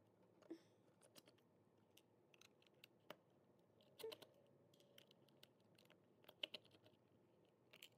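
Precision screwdriver backing the small screws out of a plastic cassette shell: quiet, scattered clicks and ticks of the metal tip in the screw heads, with a few louder clicks about four and six and a half seconds in.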